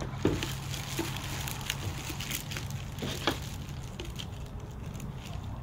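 Thin plastic bag crinkling and crackling as it is torn open and pulled off a new machine, in irregular rustles with a few sharper snaps.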